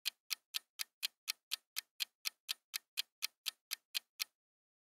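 Clock-tick countdown sound effect, even sharp ticks about four a second, marking a five-second answer timer; the ticking stops shortly before the end.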